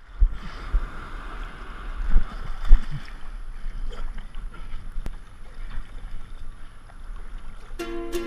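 Water rushing past a board-mounted camera, with wind buffeting its microphone and several dull thumps in the first three seconds. Ukulele music starts near the end.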